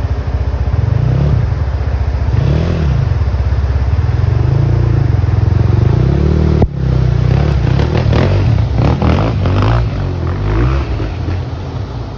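EGL 300 dirt bike's engine running and revving as it is ridden through snow, its pitch rising and falling with the throttle, with a sudden brief drop about two-thirds of the way through.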